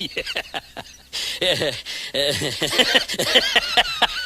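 Voices in a meme sound clip: a quick run of short laugh-like syllables, then an abrupt cut about a second in to a noisier clip with several wavering voices.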